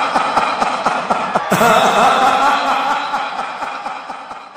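A man's long, mocking laugh, a rapid run of 'ha's, fading out toward the end.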